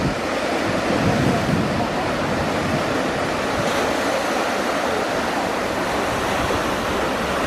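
Steady surf washing on the shore, with wind buffeting the microphone.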